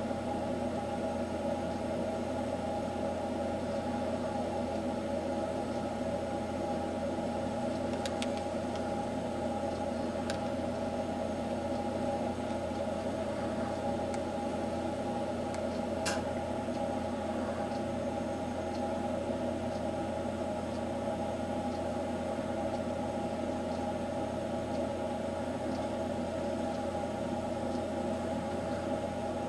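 Steady machine hum with a few faint, sharp clicks, the clearest about sixteen seconds in.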